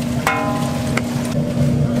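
A steady machine hum, with a ringing clink about a quarter second in and a second short tap about a second in.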